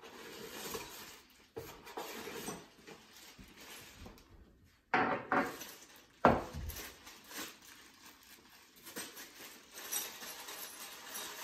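Small metal hardware parts in plastic bags being handled and unwrapped: plastic crinkling with clinks of loose metal pieces such as Allen wrenches, and a few sharp knocks midway.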